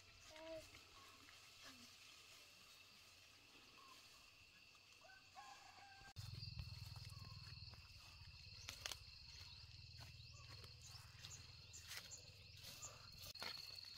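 Faint outdoor ambience: a steady high insect drone with a few short bird calls. About six seconds in the sound changes abruptly to a low rumble with scattered clicks and rustles, like steps through undergrowth.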